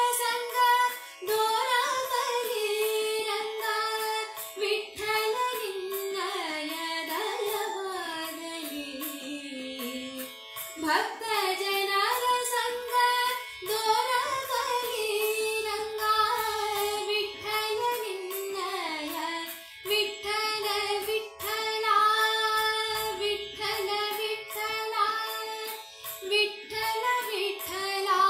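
Female voice singing a Kannada devaranama in Carnatic style, long ornamented notes sliding up and down, with a long slow fall in pitch about a quarter of the way in.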